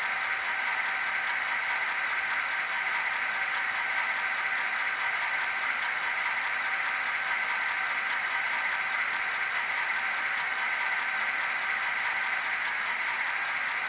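Steady idling of a diesel locomotive's engine, the running sound for the stationary HO scale GP39-2 model, with an even hum and a few steady tones.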